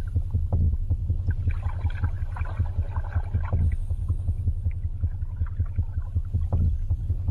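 Underwater ambience: a steady low rumble of moving water with many small clicks and crackles over it.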